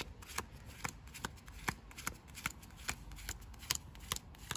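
Playing cards being dealt by hand, each card giving a short crisp snap as it is pulled off the pack, about two or three times a second.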